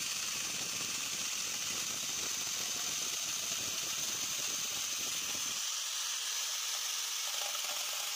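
Electric angle grinder fitted with a mini chainsaw bar and chain, running at full speed with a steady high whine while sawing into a wooden beam. About five and a half seconds in, the rough low cutting noise drops away as the chain comes out of the wood, and the motor whine carries on.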